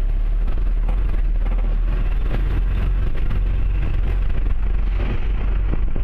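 Steady low rumble of a vehicle's engine and tyres heard from inside its cab while driving over a rough, potholed dirt road, with scattered small knocks and rattles.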